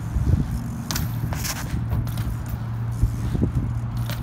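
BMX bike riding on concrete: tyres rolling with scattered knocks and clicks, and a sharp knock near the end, over a steady low hum.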